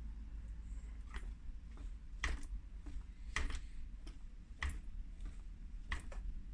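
Sharp light clicks, about one a second and five in all, over a steady low rumble.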